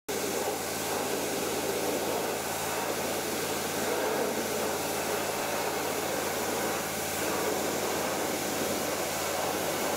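Pressure washer spraying water into a roof gutter through a curved gutter-cleaning attachment on a long lance: a steady hiss of spray with the washer's motor humming underneath.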